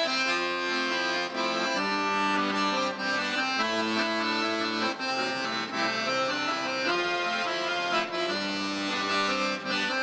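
Live instrumental music: a melody over sustained chords, the notes held and changing every second or so, with no singing.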